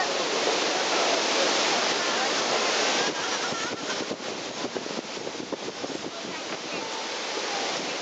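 Strong storm wind rushing through the trees and buffeting the microphone. The gust eases about three seconds in and turns choppier.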